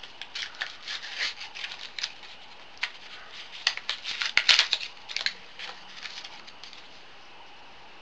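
Packaging of a thread locker being opened by hand: a run of irregular crinkles, clicks and snaps, busiest about four to five seconds in, dying away near the end.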